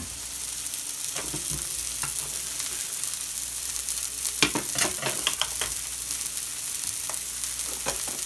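Seasoned fish fillets, salmon among them, sizzling steadily in oil in cast-iron skillets as they are blackened. A quick run of sharp clicks and knocks comes about halfway through.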